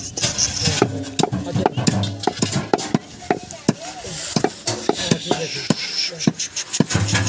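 A heavy cleaver chopping goat meat on a wooden log block: sharp, repeated chops, about two or three a second.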